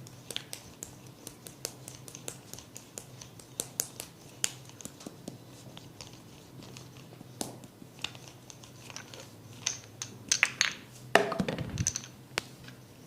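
Hair cracking during a barber's head massage: sharp crackles and snaps scattered throughout, bunching into a louder run of crackles with a dull thump in the last few seconds.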